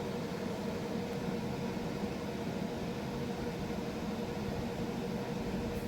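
Steady background hum and hiss with a faint constant tone running through it, unchanging, with no distinct events.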